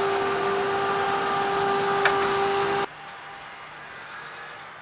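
John Deere 6105R four-cylinder tractor running with its Rauch twin-disc fertiliser spreader working, a steady high whine over the engine, and a single sharp tick about two seconds in. Near three seconds the sound drops suddenly to the same rig running quieter and further off.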